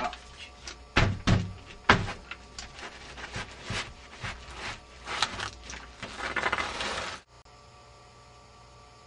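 A hanging plastic sheet being grabbed and pushed aside, crinkling and rustling, with several heavy thumps in the first two seconds. The sound cuts off suddenly about seven seconds in.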